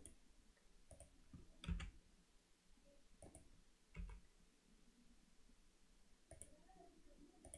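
A handful of short computer mouse clicks and keyboard key presses, about seven in all, two of them louder with a dull thud, over near-silent room tone.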